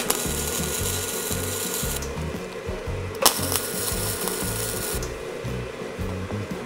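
Miller 120-volt flux-core wire welder laying two short tack welds, each a steady crackle of about two seconds, the second starting about three seconds in.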